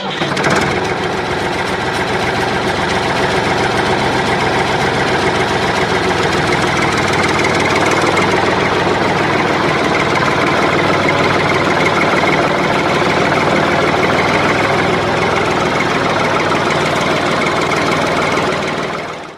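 An engine running steadily with a rapid knocking pulse, fading out near the end.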